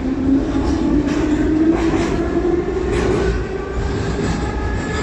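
Metro train running: a steady rumble with a motor whine holding near one pitch, and fainter higher whine tones climbing slightly in the second half.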